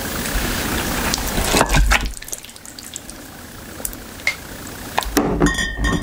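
Thick stew poured from a plastic container onto a plate: a wet sliding and plopping, loudest in the first two seconds, then a few light taps and ticks. Near the end there is a short ringing clink.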